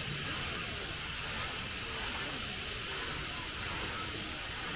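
Steady hiss of steam escaping from standing steam locomotives.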